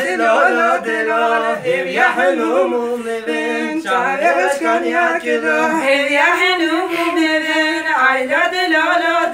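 Voices singing a folk song unaccompanied, the melody rising and falling in continuous phrases.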